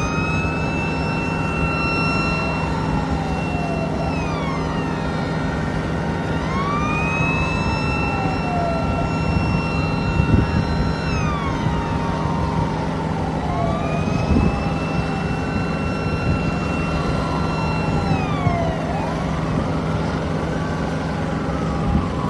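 Two airport fire-rescue truck sirens wailing slowly and overlapping, each rising, holding its pitch, then falling about every six seconds, over a steady low hum.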